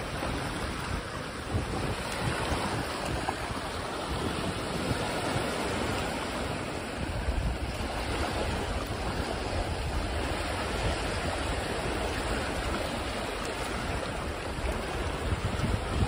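Small sea waves breaking and washing up a shallow sandy shore and around rocks, a steady wash of surf. Wind buffets the microphone with a low rumble underneath.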